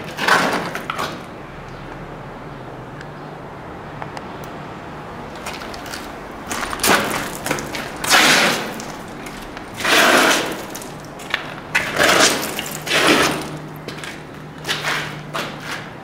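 Gritty crunching and scraping of rubble and grit underfoot on a debris-strewn floor. There are about six loud bursts at irregular intervals of one to two seconds.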